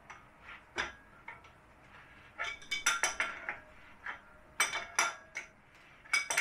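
Metal clinks and clanks of a wrench on a steel tie rod as it is turned to adjust toe-in. They come in irregular clusters of sharp strikes, each with a short metallic ring.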